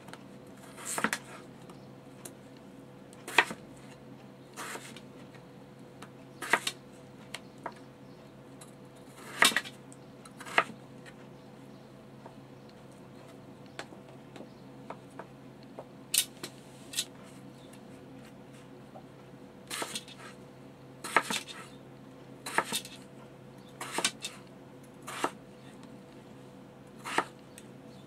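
Kitchen knife slicing yellow potatoes on a plastic cutting board: sharp, irregular knocks as the blade strikes the board, every second or two with a pause in the middle. A faint steady hum runs underneath.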